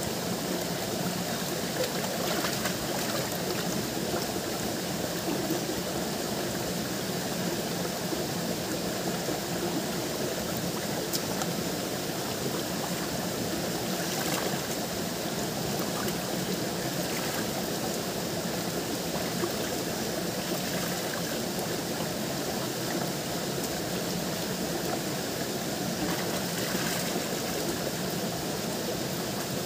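Running stream water, a steady rushing that does not change.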